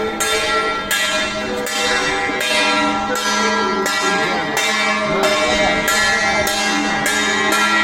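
A bell struck repeatedly in a steady rhythm, about once every three-quarters of a second, each strike ringing on into the next.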